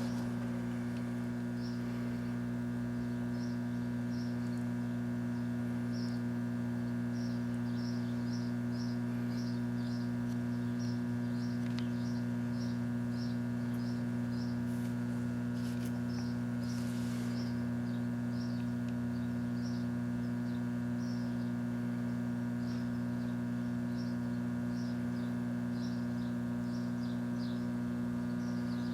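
Microwave oven running with a steady electrical hum, two expired credit cards inside that are not sparking. Faint high chirps repeat over the hum about once or twice a second.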